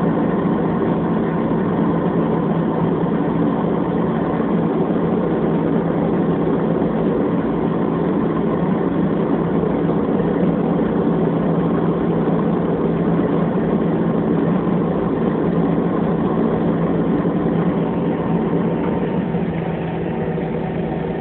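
Airliner engines running steadily, heard inside the passenger cabin as a constant loud rumble and hum with a few steady tones in it, easing off slightly near the end.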